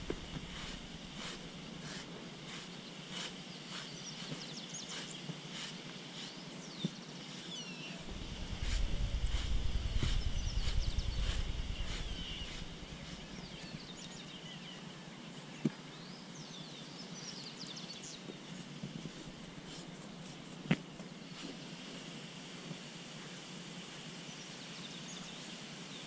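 Birds chirping and singing in the open pasture, with a steady high hum under them. About a third of the way in, a low rushing noise swells for several seconds, and two sharp clicks come later.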